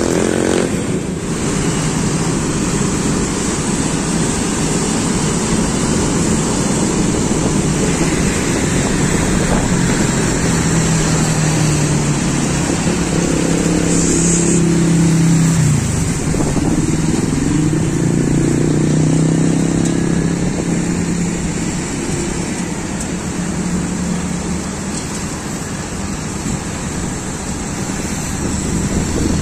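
Road traffic heard from a moving motorcycle: steady engine and road noise, with an engine note that rises and falls and drops sharply about halfway through.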